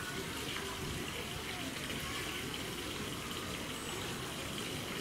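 Steady rush of running water, with faint voices far off underneath.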